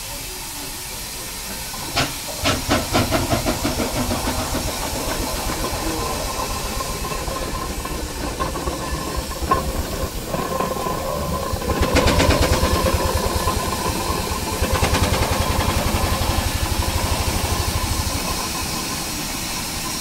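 Steam rollers and traction engines moving off under steam: rhythmic exhaust chuffs begin about two seconds in, over a steady hiss of escaping steam. A louder, faster run of chuffs starts about twelve seconds in and carries on until near the end.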